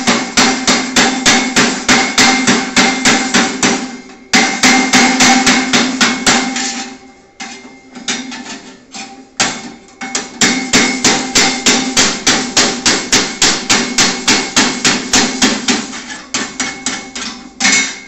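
Chipping hammer rapping along a freshly laid stick-weld fillet bead on 2 mm steel sheet to knock off the slag, in quick runs of about five blows a second, the steel ringing with each blow. The blows pause briefly about four seconds in and thin out around eight to nine seconds in before picking up again.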